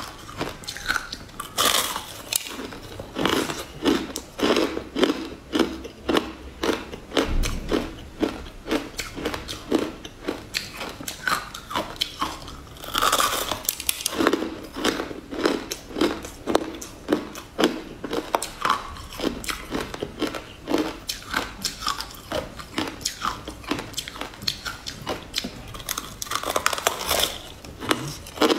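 Biting and crunching into a hard, crystal-coated purple sweet, then chewing it with rapid crunches several times a second. Louder bites come about two seconds in, about halfway through, and near the end.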